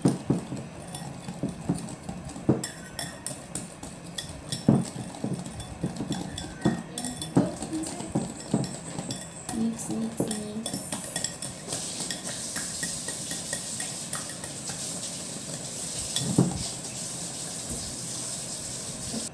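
Wire whisk beating pancake batter in a glass bowl, the wires clicking and scraping against the glass in irregular strokes, settling into a steadier swishing about two-thirds of the way through.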